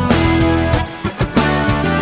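Background music: a rock track with guitar, with a brief dip in loudness about a second in.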